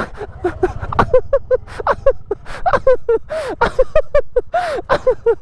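Several people laughing in quick breathy bursts over a motorbike engine running low underneath.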